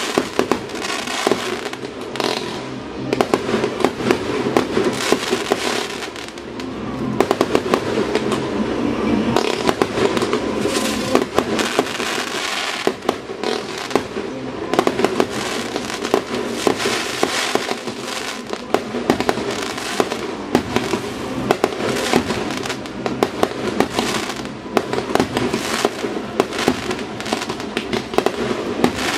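Fireworks display: a dense, continuous barrage of aerial shell bursts and crackle, many bangs a second, easing briefly about a third of the way through.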